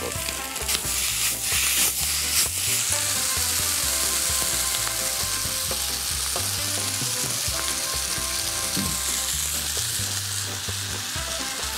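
Pork and vegetable stir-fry sizzling in a frying pan over lowered heat as the mixed curry seasoning is poured in. Clicks and clatters of stirring come in the first few seconds, then a steady sizzle with an occasional utensil click.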